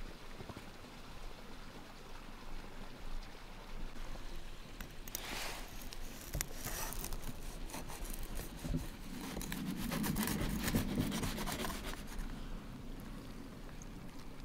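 A knife cutting into the crisp baked bread crust sealing a clay pot: a run of crackling and scraping from about five seconds in until about twelve seconds, over a steady faint background hiss.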